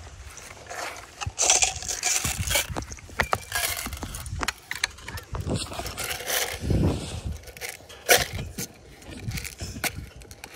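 Close scraping and rustling, with scattered sharp clicks and low thuds, irregular throughout.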